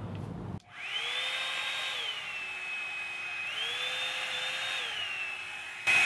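Revlon One-Step Volumizer hot-air brush running, its fan motor whining over a steady rush of air. The whine rises about a second in, drops around two seconds, rises again and drops once more near the end as the dryer is switched between its high and low settings.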